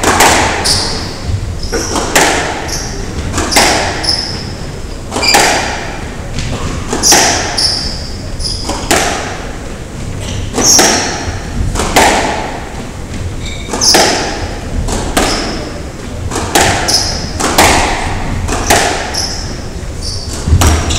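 Squash rally: the ball cracks sharply off the rackets and the walls about once a second, echoing around the court, with short squeaks of court shoes on the wooden floor between shots.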